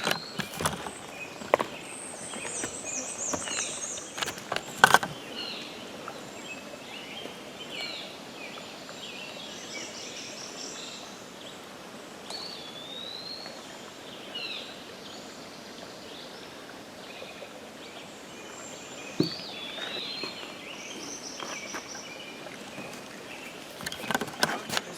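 Songbirds singing in short repeated chirping and warbling phrases over a steady outdoor background hiss, with a few sharp clicks, the loudest about five seconds in.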